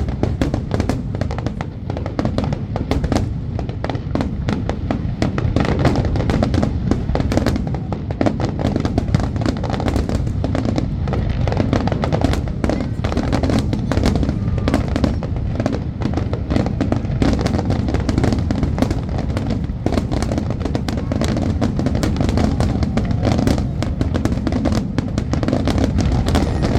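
Fireworks display in a dense, continuous barrage: rapid overlapping bangs and crackling over a steady low rumble, with no let-up.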